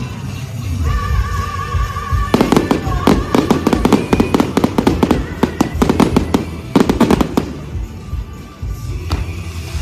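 Fireworks display: rapid volleys of bangs and crackles, densest from about two and a half to seven and a half seconds in, over loud show music.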